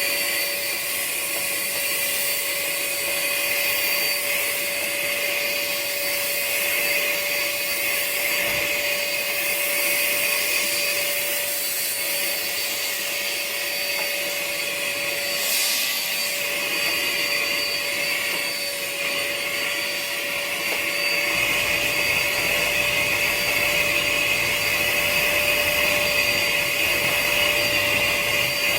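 Dirt Devil vacuum cleaner running steadily, a constant motor whine with airflow hiss. The sound thickens and gets a little louder about two-thirds of the way through.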